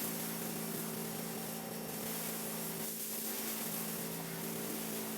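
Pressure washer running steadily, its motor humming under the hiss of the water spray; it starts abruptly at the outset.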